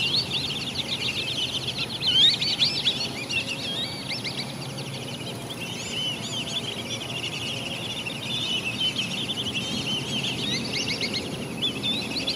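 Many birds chirping and whistling at once, quick calls and trills overlapping without a break, over a low steady background rumble.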